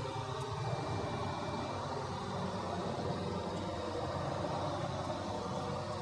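Steady low mechanical hum, like a fan or small motor running, with no distinct clicks or strokes.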